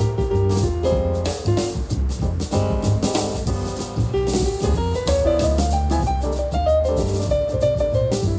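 Piano-led jazzy music with a heavy bass line and drums, played at full volume through a Minirig portable Bluetooth speaker with its subwoofer.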